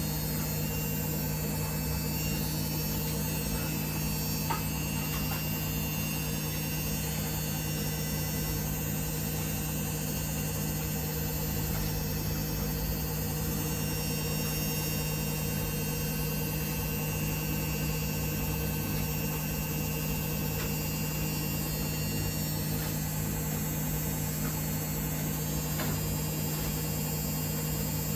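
Samsung WF1700WRW front-loading washing machine running, a steady hum with an even whir and a faint tick or two.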